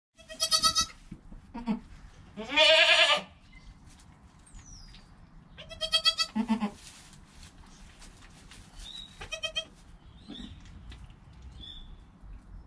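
Young goats bleating: about four calls, short wavering bleats near the start, about six seconds in and about nine seconds in, and one longer, louder bleat that bends in pitch about two and a half seconds in.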